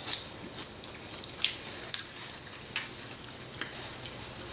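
Eating sounds during a meal: chewing, with about five short sharp clicks and smacks spread through.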